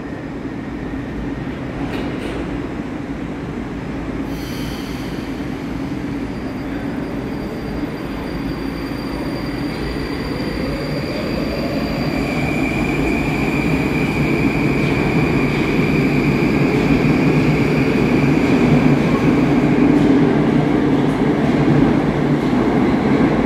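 Moscow Metro train running into an underground station: a steady low rumble that grows louder through the second half, with a rising whine about ten seconds in and a high, steady wheel squeal after it.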